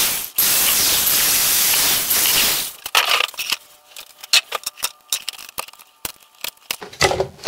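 Electric drill boring through the plastic wall of the box for about two and a half seconds, with a brief stop near the start: pilot holes for a square switch cutout. After it stops come light clicks and knocks of the plastic case being handled.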